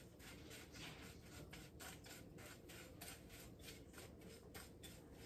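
Faint, irregular scratchy rustling, several strokes a second: fingers rubbing cold butter into a crumbly flour, oat and brown sugar topping in a glass bowl.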